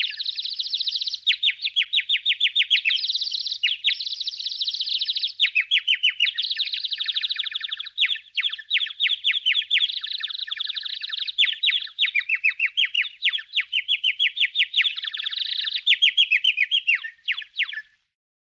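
Sound effect of small birds chirping and twittering: rapid runs of high, quick chirps, several a second, with brief pauses between runs, stopping shortly before the end.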